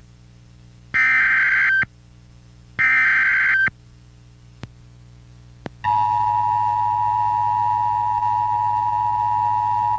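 Emergency Alert System tones: two harsh digital squawks of about a second each, the coded SAME header data bursts, then two small clicks. About six seconds in, the steady two-note EAS attention signal starts and holds, the tone that announces an emergency message.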